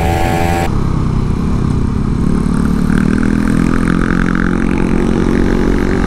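Suzuki Satria F150 Fi's single-cylinder four-stroke engine running steadily under way, with wind rumble on the helmet camera. Its pitch rises slightly about halfway through.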